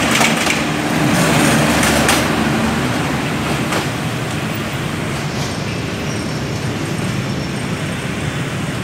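Passenger coaches rolling past close by, their wheels clattering over the rail joints for the first couple of seconds. Then the rumble fades to a steadier, lower noise as the tail of the train pulls away.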